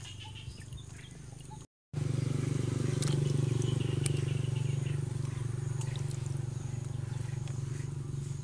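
A brief dropout about two seconds in, then a steady low drone with scattered faint splashes and clicks of hands washing tarantulas in a metal bowl of water.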